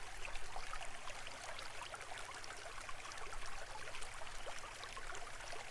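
Faint steady sound of running water, like a trickling stream, with a low steady hum beneath it.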